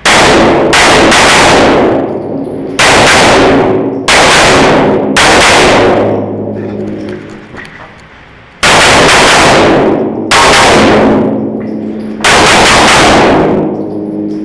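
Pistol gunfire in short strings, about a dozen shots. Each shot trails a long fading echo, some with a ringing tone behind it.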